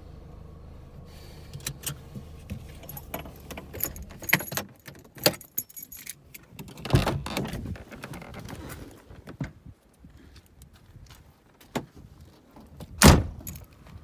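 Getting out of a car: a low engine hum that stops about four seconds in, then keys jangling and the clicks and rattles of the door being opened and handled, with one loud thump a second before the end.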